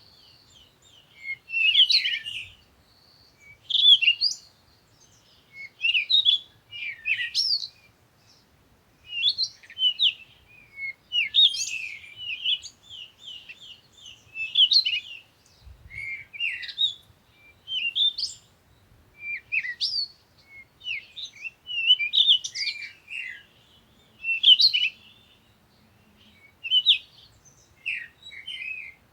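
Songbirds chirping and twittering in short, quick phrases, one every second or two with brief pauses between.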